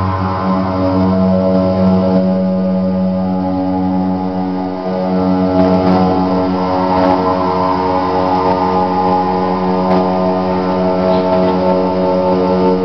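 Eurorack analog modular synthesizer playing a dense sustained drone: many steady stacked tones over a strong low hum. The deepest bass tone drops out about half a second in.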